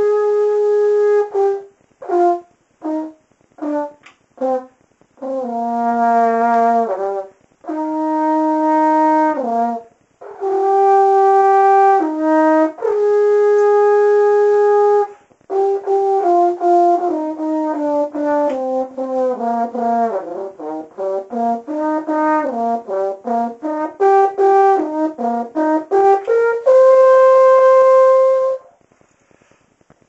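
French horn played solo: long held notes and a few short detached notes, then a quicker run of changing notes, ending on a long held note that stops shortly before a brief pause.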